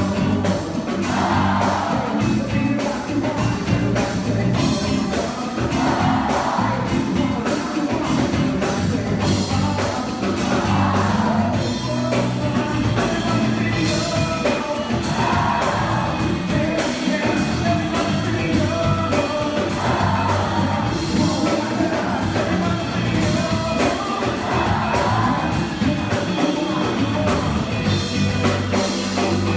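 Live band music with singing over a steady drum beat, the vocal phrases repeating every few seconds.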